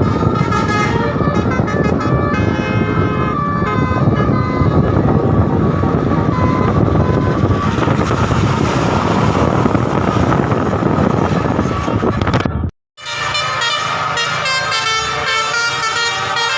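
A bus telolet horn plays a melody of quick stepping notes over a loud low rumble. It breaks off for a split second about thirteen seconds in, then the horn tones go on with less rumble behind them.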